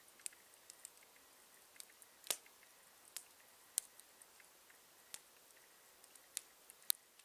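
Campfire crackling: burning wood giving off irregular sharp pops and snaps over a faint steady hiss, with a few louder snaps standing out among the small ones.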